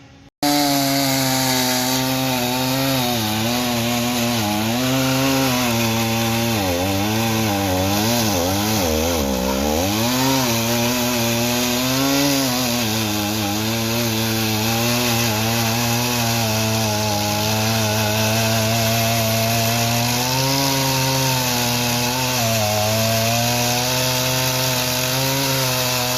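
A stock Stihl 038 AV chainsaw cutting a log at full throttle. It cuts in suddenly, its engine pitch sagging and wavering under load, and it bogs down deeply about seven to ten seconds in before recovering. The pitch starts climbing right at the end as the cut finishes.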